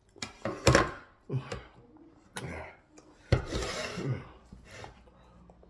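A paper plate and a bowl of soup being handled on a tabletop as the bowl is set down onto the plate: several knocks and scraping rubs, the loudest under a second in and about three and a half seconds in.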